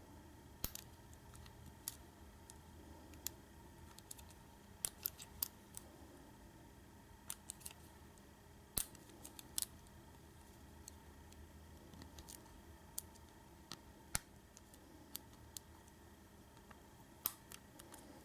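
Irregular, scattered small metallic clicks and ticks of a lock pick and tension wrench working the pin stacks of a Schlage deadbolt cylinder during single-pin picking.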